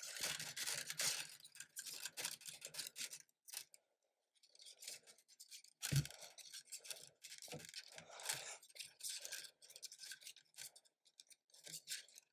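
Faint scratching and rubbing of plastic 3D-printer filament being pushed by hand through a feed tube and the extruder, in short irregular strokes, with a soft knock about six seconds in.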